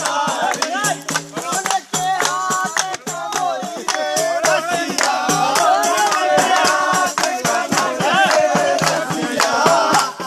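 Indian folk music: a Holi rasiya song sung over rhythmic hand percussion with a shaker-like rattle and a steady low note.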